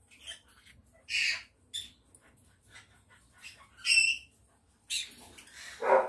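Green-cheeked conures giving short, harsh squawks: about four separate calls, the strongest about four seconds in. A louder, lower-pitched noise follows right at the end.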